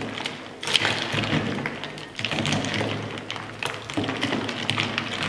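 A spoon stirs iced watermelon juice in a plastic container. Ice cubes knock against each other and the container walls, with liquid sloshing and many irregular clacks.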